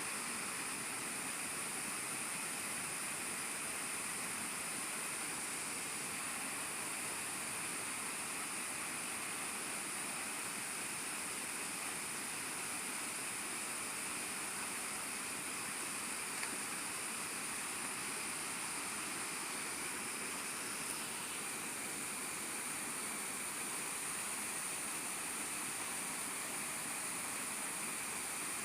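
Steady outdoor background hiss with an even high-pitched drone and no distinct events. Part of the hiss drops away about 21 seconds in.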